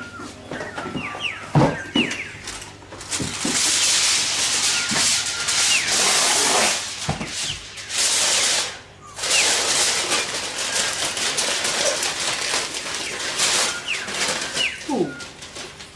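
Aluminium foil being pulled off the roll, torn and crinkled over a bowl, in long loud rustling stretches with a short break about halfway, after a few knocks at the start.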